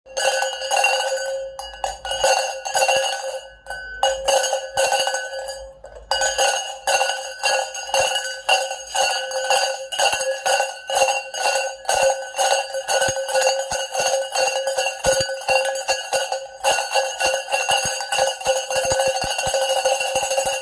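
Decorative metal cowbells being shaken, their clappers clanking rapidly and irregularly over a steady ringing at several fixed pitches. The clanking thins out and quietens for a couple of seconds, then picks up again.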